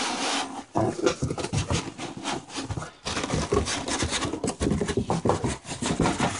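Cardboard box and packing being handled and rubbed as a computer case is unpacked: a busy run of irregular rustling, crackling and small knocks.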